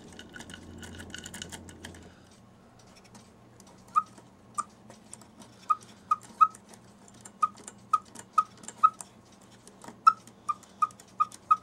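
A cuckoo clock's bellows pressed by hand, giving about fourteen short, clicky peeps from its whistle, all at one pitch and unevenly spaced. The bellows still sounds but is cracked and torn, so it is blown out. Before that, light clicking from the weight chain being fed out through the case.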